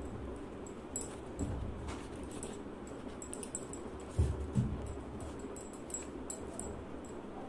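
A paintbrush dabbing and scraping paint inside a cardboard tray, with dull bumps of the tray against a wooden table about a second and a half in and twice around four seconds in.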